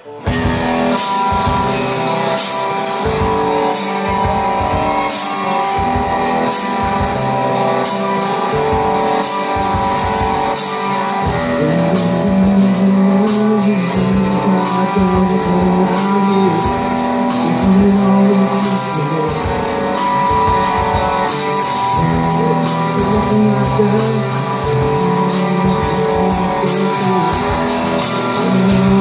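Live rock band playing: strummed guitars, bass and a drum kit keeping a steady beat that gets busier about eleven seconds in.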